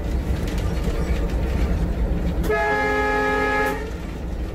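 Inside the cab of a WDG-3A diesel locomotive under way: a steady low engine rumble, with the horn sounding one steady blast of just over a second a little past halfway through.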